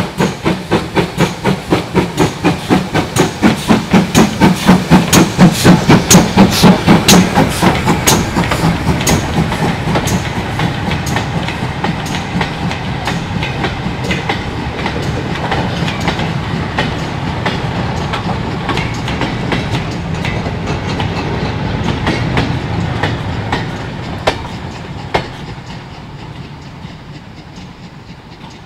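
GWR Manor-class two-cylinder 4-6-0 steam locomotive 7820 Dinmore Manor working a short goods train past: rapid, even exhaust beats that are loudest about six seconds in as the engine goes by. The beats then give way to the wagons rumbling and clicking over the rail joints, which fade as the brake van moves away.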